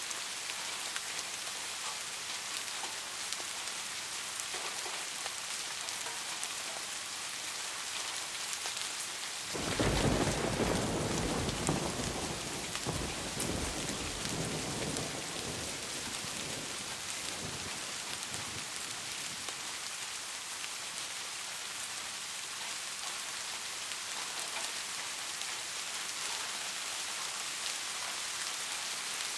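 Steady rain, with a clap of thunder about ten seconds in that rumbles loudly at once and dies away over several seconds.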